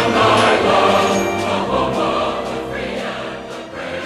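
Background music of sustained, layered chords, growing quieter in the second half.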